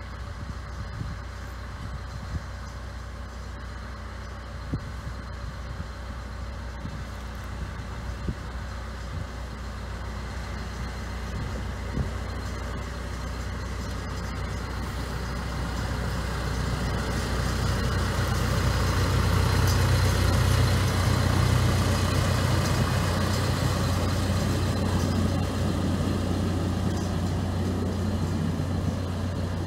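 Severn-Lamb Bo-Bo diesel-hydraulic narrow-gauge locomotive running steadily as it hauls a train of open wagons, its engine hum growing louder as it approaches and loudest about two-thirds of the way through as it draws level.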